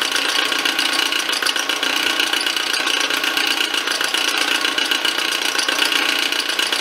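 Milling machine running steadily, its small ball end mill cutting a slot into a metal arbor shaft.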